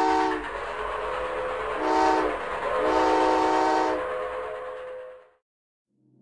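Steam train whistle sound effect: one blast ends just after the start, then a short blast about two seconds in and a longer one about three seconds in, over the rumbling noise of the running train. The sound fades out about five seconds in.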